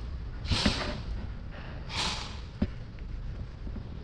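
A person's breathing close to the microphone: two short, breathy exhales, about half a second and two seconds in, with a few light knocks and thumps from handling gear.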